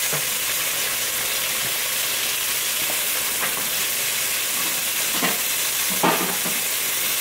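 Steady sizzling of food frying in a pan on a stovetop, with a few light knocks of cookware, the loudest about six seconds in.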